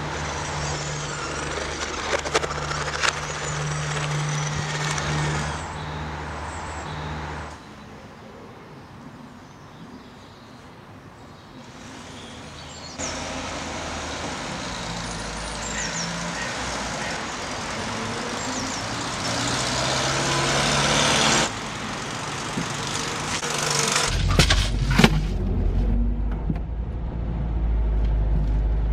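Street ambience with traffic going by, the background noise shifting abruptly several times. About 24 seconds in, a few clunks are followed by the steady low rumble of a car engine running.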